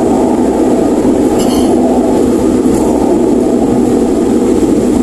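Steady road noise inside a car driving at highway speed: tyre roar and engine drone heard through the cabin.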